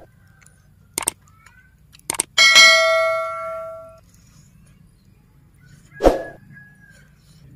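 Subscribe-button overlay sound effect: two quick mouse-style clicks, then a bright bell ding that rings out and fades over about a second and a half. A short sharp burst follows about six seconds in.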